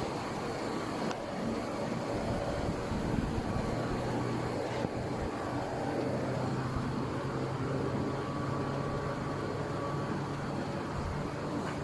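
High-pressure air compressor (30 bar, 15 kW) running steadily under continuous noise, with a steady low hum that sets in about four seconds in.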